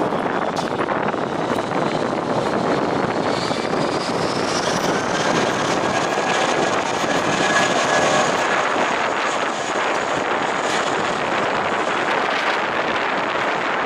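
Boeing 737 passing close by on its landing approach: jet engine noise with a high whine that rises in pitch, and the sound is loudest about eight seconds in.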